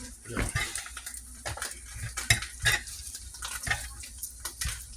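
Cooking utensil scraping and tapping against a frying pan as beaten eggs are stirred, in irregular clicks, with the eggs frying underneath.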